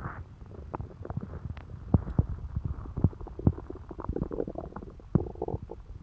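Human stomach gurgling while digesting a pizza meal: a rapid, irregular run of pops and bubbly gurgles, with a couple of longer gurgles in the second half.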